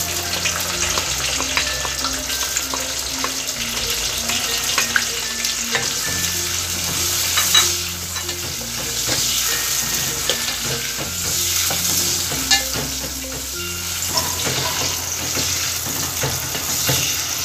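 Sliced onions sizzling as they fry in hot oil in a metal pot, stirred with a wooden spoon that scrapes and knocks against the pot.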